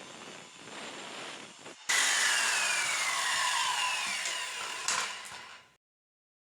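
Power saw cutting through pallet boards, trimming them off along the edges. It works quieter at first, then about two seconds in it bites in much louder with a falling whine, and it cuts off suddenly near the end.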